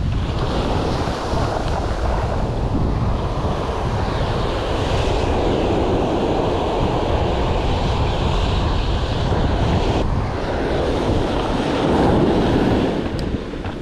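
Wind rushing over the microphone, mixed with the steady wash of waves breaking on the beach.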